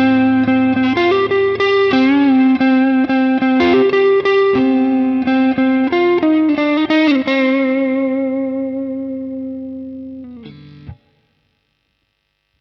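Strat-style electric guitar played through a Caline Pure Sky (Timmy-style) overdrive pedal: a phrase of single notes, then a last note held with vibrato that fades out. A short noisy scrape cuts it off about 11 seconds in, followed by silence.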